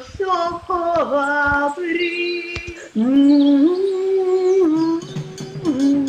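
A single voice singing a slow melody with long held notes that slide from one pitch to the next, at first with no accompaniment. Near the end, instrumental music begins to come in under it.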